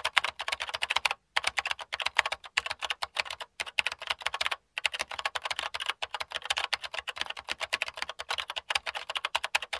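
Rapid computer-keyboard typing, key after key in quick runs with a few brief pauses between them.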